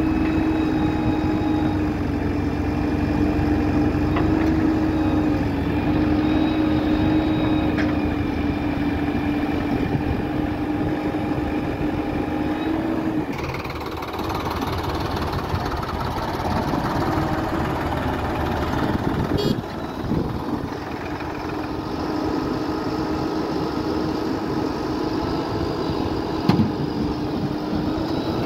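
Diesel engines of a JCB 4DX backhoe loader and a Sonalika DI-47 RX tractor running steadily while the backhoe digs and loads soil. The engine drone breaks off about halfway and comes back, with a sharp knock near the end.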